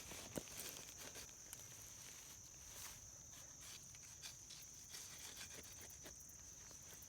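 Faint crunching and rustling of garden soil as sweet potatoes are dug out, with a sharper click about half a second in, over a steady high-pitched tone in the background.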